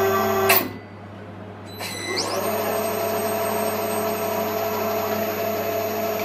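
Milling machine spindle motor turning a thread tap at low speed: a steady hum that is switched off with a click about half a second in, then started again just under two seconds in with a rising whine as it spins up, and runs steadily while the tap is backed out of the tapped head-stud hole in the engine block.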